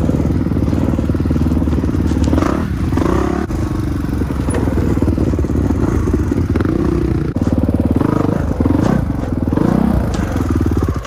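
Kawasaki dirt bike engine running close up at low speed, the throttle blipped a few times, so it rises and falls in pitch.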